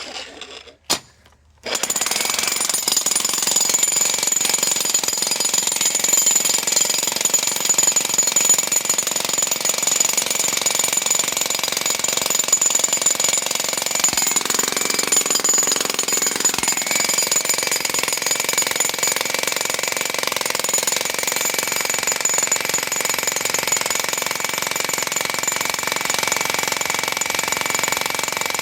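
Jackhammer with a chisel bit breaking up the concrete floor of a swimming pool. It is silent for about the first second and a half, then starts and hammers continuously.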